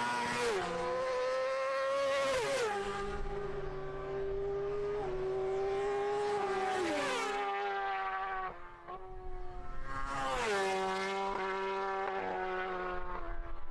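Racing motorcycle engine held at high revs, its note dropping sharply at several gear changes and then holding or climbing again.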